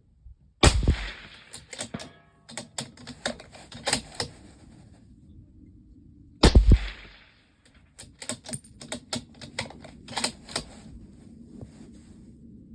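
Two suppressed rifle shots from a Tikka T3x .308 Win bolt-action, about six seconds apart, each followed by a run of sharp clicks and clacks.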